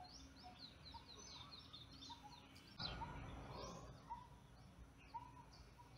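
Faint birdsong: many short high chirps and a few lower whistled notes repeating over quiet outdoor background noise, with a brief soft rush of noise about three seconds in.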